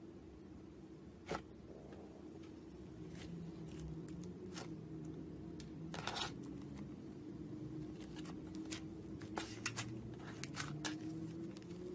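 Slime being squeezed and stretched by hand, giving scattered sticky pops and clicks, several in the second half, over a low steady hum.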